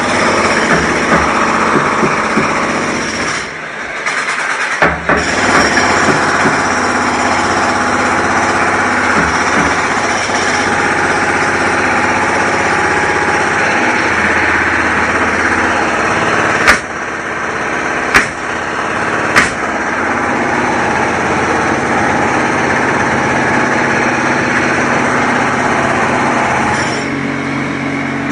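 Construction-site noise: a motor running steadily under a dense din of machinery, dipping briefly about four seconds in. Three sharp bangs come just past the middle, about a second and a half apart.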